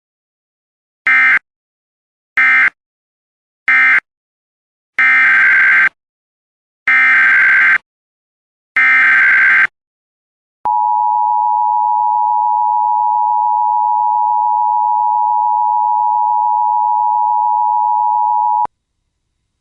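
Emergency Alert System tones: three short bursts of screechy SAME data noise, the end-of-message code closing one alert, then three longer SAME header bursts opening the next alert. Then comes the steady two-tone EAS attention signal for about eight seconds, cutting off sharply.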